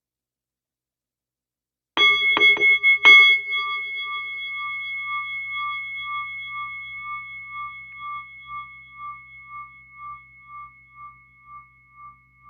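A bell-like metal chime, such as a singing bowl, struck four times in quick succession about two seconds in, the last strike the loudest, then ringing on with a slow pulsing wobble and fading away gradually.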